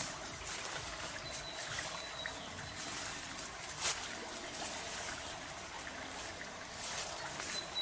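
Antique hand-turned stone grinder (rotary quern) grinding grain: the upper stone grates round on the lower with a steady gritty rasp, dotted with small clicks and crackles of grain being crushed.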